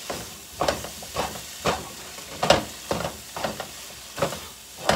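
Eggs frying in a pan, sizzling steadily, while a utensil stirs them and knocks against the pan in irregular sharp taps, roughly two a second.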